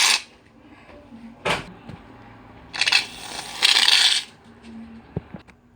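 Aerosol can of shaving cream sprayed in two short hissing bursts into a bowl of glue, after a sharp knock about a second and a half in, with a few light clicks near the end.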